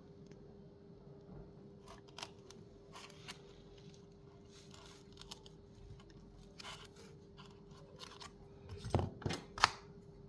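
Scattered short snips and scrapes of hand cutting work, with a few louder knocks about nine seconds in, over a faint steady hum.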